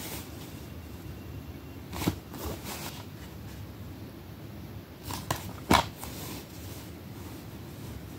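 Plastic DVD case being handled and turned over by hand: a few short knocks and rustles in two clusters, about two seconds in and about five seconds in, over steady low background noise.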